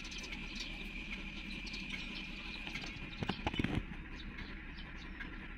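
Heavy machinery diesel engines running steadily, with a quick cluster of sharp knocks about three seconds in.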